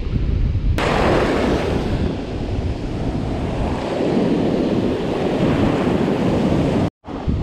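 Ocean surf breaking and washing in, a steady loud rush of foaming water, with wind buffeting the microphone. The sound cuts out for an instant near the end.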